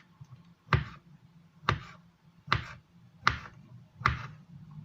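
A kitchen knife slicing a sausage into rounds, knocking down onto the cutting surface with each cut: five evenly spaced knocks, a little more than one a second.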